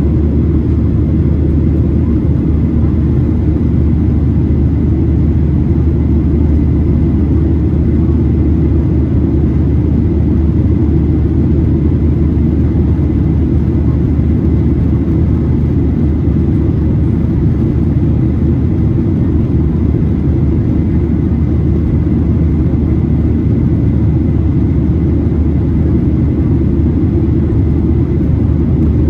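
Steady, deep cabin drone of a Boeing 737-800 climbing out after takeoff: CFM56-7B turbofan engines and airflow heard from inside the cabin, with a faint high whine over it.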